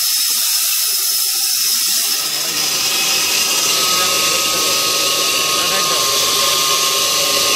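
Electric stone grinding mill running and grinding wheat into flour: a loud, steady whir with a high hiss and a faint steady whine. About two seconds in the sound grows rougher and fuller as the grain feeds into the stones.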